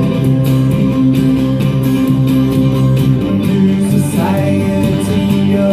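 Live band music: guitar-led backing with bass, played between sung lines of a folk-rock song.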